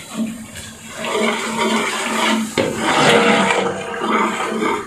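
A wet tomato, onion and yogurt masala bubbling and sizzling in a large aluminium pot as it fries, churned with a perforated metal skimmer that sloshes and scrapes through it in irregular strokes.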